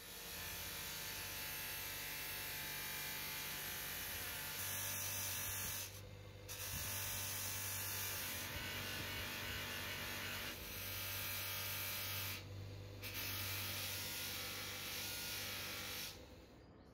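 Bench polishing motor running with a buffing wheel, a steady hum and hiss as a grooved metal knife handle is pressed against the wheel. The sound drops away briefly twice and stops near the end.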